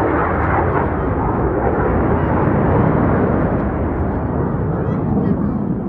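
Jet aircraft flying low past the crowd: a loud, steady roar of jet engine noise that starts to die away at the very end as the aircraft recedes.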